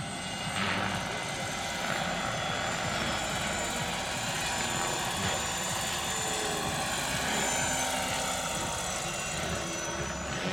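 Large radio-controlled scale model of an Aérospatiale Lama helicopter flying past: steady rotor noise with a thin high whine over it, swelling slightly midway as it passes close.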